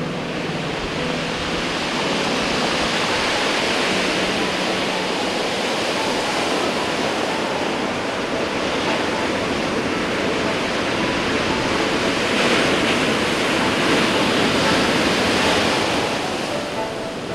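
Heavy ocean surf from hurricane swell breaking over a rocky shore, a continuous rush of churning water. It swells louder a few seconds in and again toward the end as bigger waves break.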